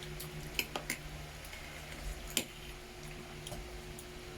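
Eating noises at a meal: three short, sharp clicks over a low steady hum.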